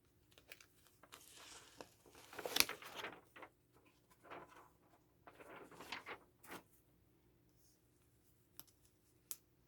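Faint handling noises: soft rustling and crinkling in two short spells, then a few light clicks near the end.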